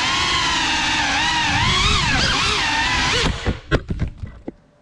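Geprc Cinelog 35 cinewhoop's brushless motors and propellers whining, the pitch rising and falling with the throttle. A little over three seconds in the motors cut out and a few sharp knocks follow as the drone crashes and tumbles.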